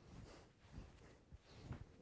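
Near silence, with a few faint soft rustles of a knit balaclava being pulled on and adjusted by hand.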